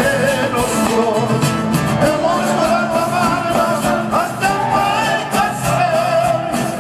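A live band playing Latin American pop-folk: strummed acoustic guitars, bass and drums, with a lead voice singing the melody.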